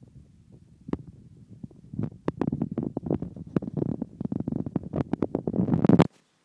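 Cat chewing a mouse: a quick run of loud, close crunching clicks that begins about two seconds in and breaks off suddenly near the end.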